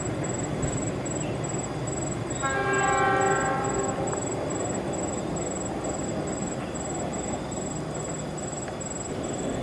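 Locomotive horn sounding one blast of about a second and a half, a couple of seconds in, over a steady rumbling noise from the line.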